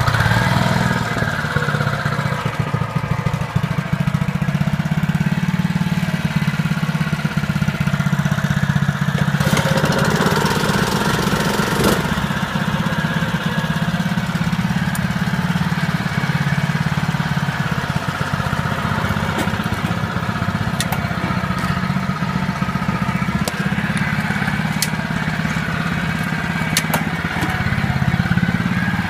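Honda walk-behind lawn mower's single-cylinder four-stroke engine running steadily just after being started, with a few faint sharp clicks over it.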